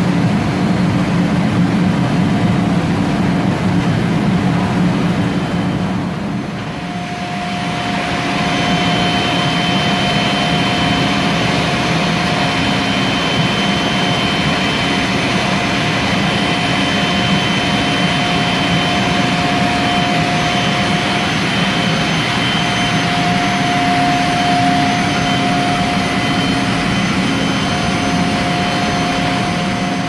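Ruwac FA2000 industrial central vacuum system running. At first it is a steady low hum; from about seven seconds in it becomes a steady rush of air with a high whine, as a sweep nozzle draws in fine cornmeal.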